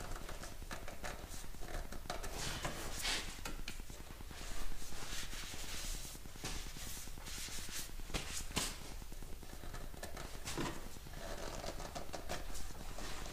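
Scattered light clicks, taps and rustles of gloved hands handling parts at the top of a car engine, over a faint steady low hum.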